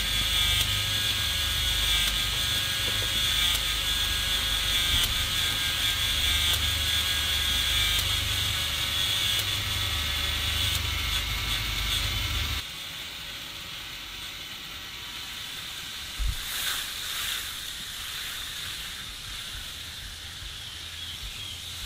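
K'nex coaster motor driving the plastic chain lift at slow speed, a steady mechanical whir with a ratchety chain rattle, as the train is pulled up the lift hill. About twelve seconds in it cuts off suddenly to a quieter steady hiss, with a few short rattles a few seconds later.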